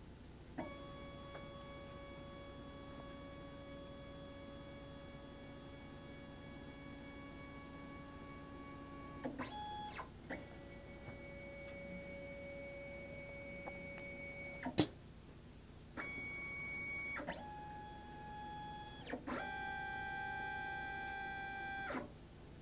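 STEPCRAFT CNC's stepper-driven axes whining through an automatic tool change: a series of separate moves, each a steady whine at its own pitch, with short pauses and pitch glides between them. There is a single sharp click about 15 seconds in.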